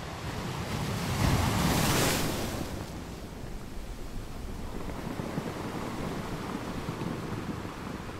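A steady rushing noise that swells loudly between about one and two and a half seconds in, then ebbs back to an even rush.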